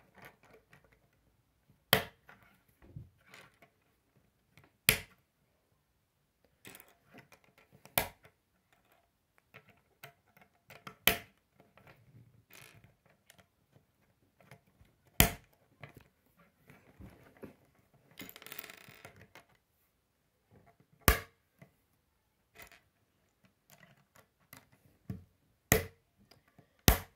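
K'nex plastic rods and connectors being snapped together by hand: a sharp click every few seconds, about eight in all, with softer rattling of pieces between and a brief rustle about two-thirds of the way through.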